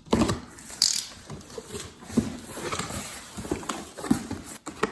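Cardboard box being opened and its contents handled: irregular knocks, taps and rustles.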